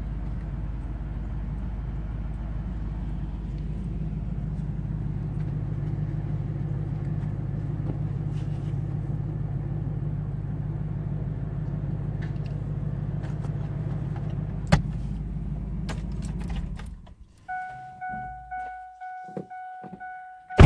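Pickup truck engine running with a steady low hum, then switched off about three-quarters of the way in. A repeated electronic warning chime then dings from the truck, and it ends in a loud thunk, typical of a door shutting.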